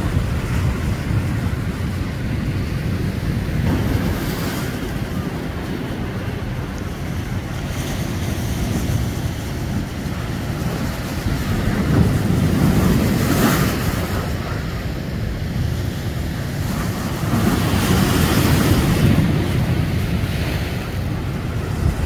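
Mediterranean sea waves breaking and washing over a rocky shore, in surges that swell and fade, the loudest about twelve and eighteen seconds in. Wind buffets the microphone.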